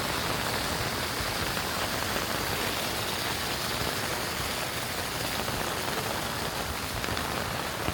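Steady rain falling, an even hiss of rainfall with drops on surfaces.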